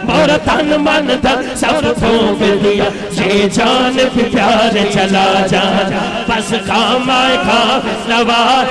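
Amplified naat: a man's chanted devotional singing with chorus-like voices over a steady rhythmic beat.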